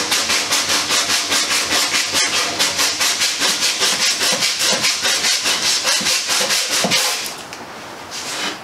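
Hand sanding block with sandpaper rasping back and forth over the epoxy fairing compound on a wooden skiff's bow, in fast even strokes about four a second. The strokes stop about seven seconds in.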